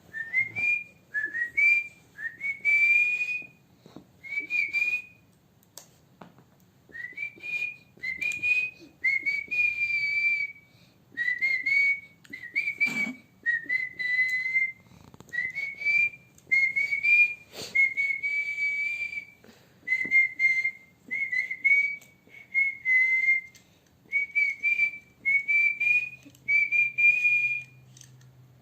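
A person whistling through the lips: short notes that slide up and level off, repeated over and over about once a second with brief pauses between runs.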